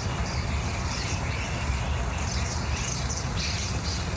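A flock of small birds chirping and twittering, many short high calls overlapping, over a steady low rumble.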